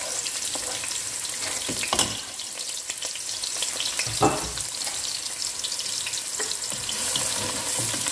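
Sliced onions sizzling in hot ghee in a pot, a steady frying hiss. There are two dull knocks, about two seconds in and about four seconds in, and a spatula starts stirring the onions near the end.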